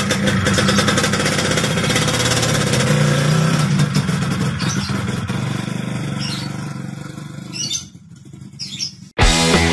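Small motor scooter engine running as the scooter pulls away, fading into the distance over several seconds. About nine seconds in, it cuts off abruptly and rock music with guitar starts loudly.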